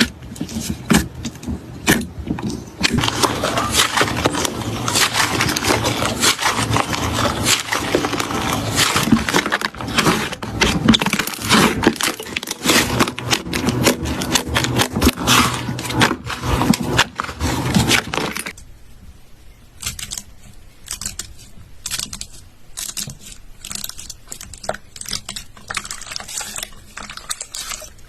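Slime being squeezed and poked by hand, giving a dense run of crackling clicks and pops. About two-thirds of the way through it drops to quieter, sparser clicks.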